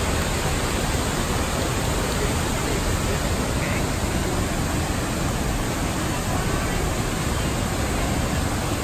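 A waterfall plunging into a pool: a steady, even rush of falling water with no breaks.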